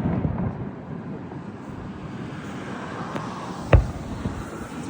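Fireworks going off: a low rolling rumble of blasts, with a sharp loud bang nearly four seconds in and a few fainter cracks around it.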